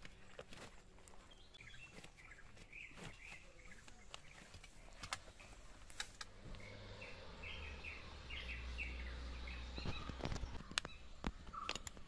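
Birds chirping in runs of short repeated notes, over scattered small clicks and rustles as straps are fastened on climbing spikes and a harness buckle is done up. A faint low hum comes in for a few seconds in the middle.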